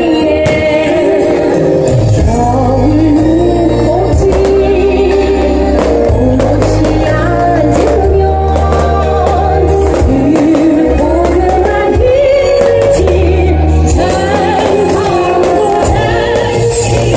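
Loud music with a singing voice over a heavy, steady bass line.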